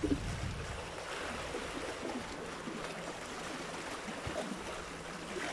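Small sea waves washing and trickling among shoreline boulders, a steady watery hiss. A faint low steady hum joins about halfway through.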